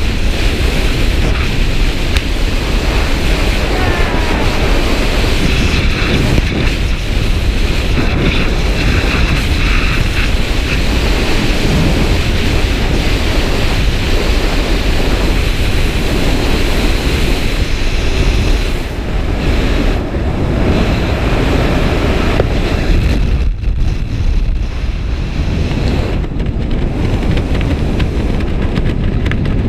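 Loud, steady rush of freefall wind blasting over an action camera's microphone during a skydive, dipping in level a few times in the later part.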